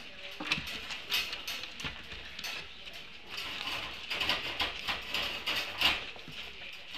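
Puppies scrabbling and pawing in wood-shaving bedding and at a crate: an irregular run of scratching, rustling and light knocks, busiest in the second half.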